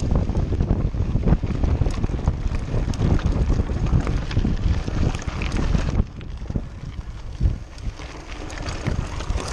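Wind buffeting the microphone of a camera on a mountain bike riding over gravel, with tyre crunch and the bike rattling on the rough surface. It drops noticeably quieter about six seconds in.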